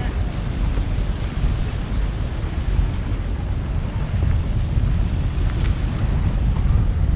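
Wind buffeting the microphone in a steady, uneven low rumble, over a continuous rush of wind and waves along the shore.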